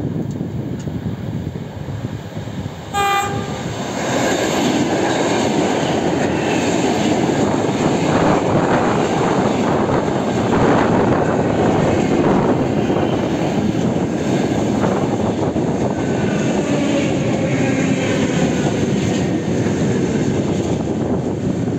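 ЭП2Д electric multiple unit sounding a short horn blast about three seconds in, then running past close by with a loud steady rush of wheels on rails and running gear. Faint whining tones rise in pitch near the end.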